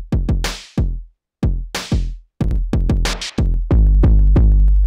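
Drum-machine beat from Native Instruments Maschine, a Dirty Mix kit pattern run through a glitch multi-effects group. Heavy, deep kicks and snare hits are chopped off abruptly in a stuttering rhythm, and a deep bass note is held through the last second or so.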